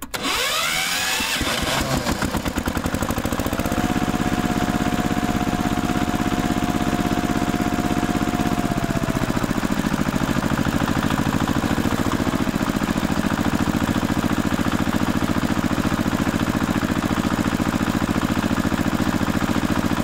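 An engine starting, rising in pitch over the first two seconds as it catches, then running at a steady speed with fast, even firing pulses.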